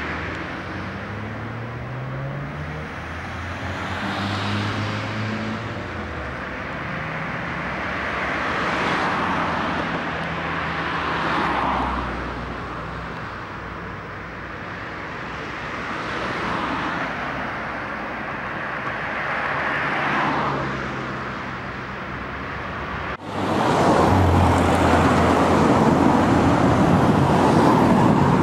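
Cars passing by on a road one after another, each swelling and fading away, about five in the first twenty seconds. About 23 s in the sound cuts abruptly to louder, closer traffic as a car passes close by.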